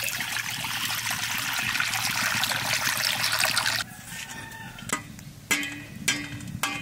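Water poured in a steady stream into an aluminium kadhai, splashing loudly, stopping abruptly about four seconds in. Then four light clicks with a short metallic ring as eggs are handled in a steel bowl of water.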